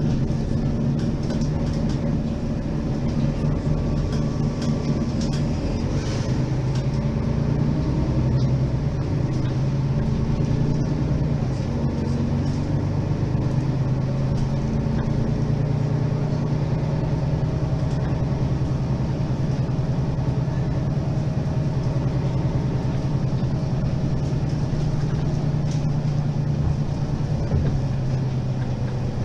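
Engine of a 2008 Mercedes-Benz Citaro G facelift articulated bus idling, a steady low drone.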